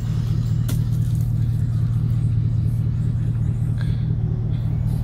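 Steady low mechanical hum, with a sharp knock a little under a second in.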